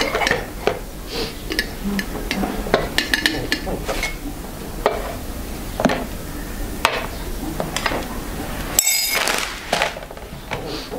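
China cups and a teapot clinking and knocking on a table as tea is served. Short scattered taps run throughout, with a ringing clink near the end.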